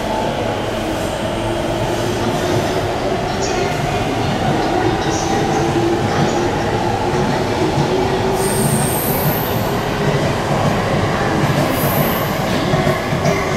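Electric commuter train running close by: a steady rumble with a motor whine that rises slowly in pitch, and two brief high-pitched wheel squeals in the second half.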